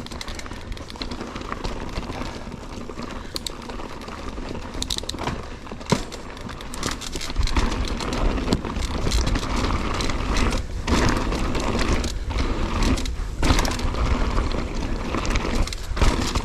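Mountain bike rolling along a dirt trail: tyres on dirt and roots with scattered clicks and rattles from the bike. A low rumble grows louder about seven seconds in.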